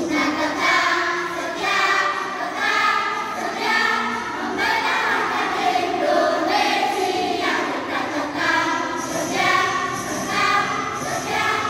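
Children's choir of boys and girls singing together.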